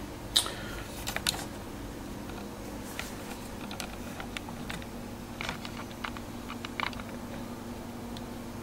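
Oster digital convection toaster oven running just after being started: a steady low hum, with scattered light clicks and ticks at irregular moments, the sharpest about half a second in.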